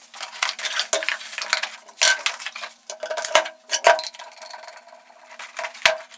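An 18 V cordless angle grinder and its cardboard box being handled and set down on a wooden table: a run of irregular clacks and knocks of hard plastic and cardboard on wood, the loudest about two, three and a half and four seconds in.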